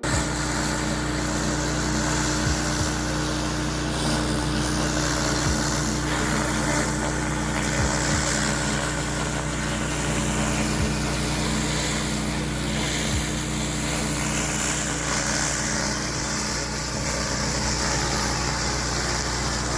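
Pressure washer's Honda GX390 single-cylinder gasoline engine running steadily, with the hiss of high-pressure water spray over it.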